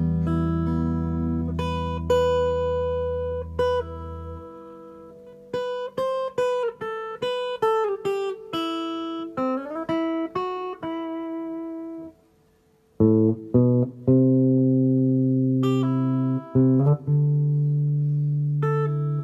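Electric guitar played through a Fender Marine Layer Reverb pedal set to its hall reverb: a few held low notes ring out, then a run of picked single notes with some slides. After a moment's silence about two-thirds through, sustained chords ring.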